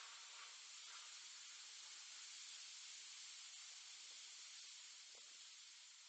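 Near silence: a steady faint hiss, the background noise of an outdoor camera's microphone.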